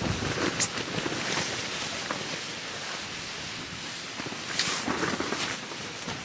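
Wood fire crackling: a steady hiss with a few sharp pops, one just after the start and two near the end.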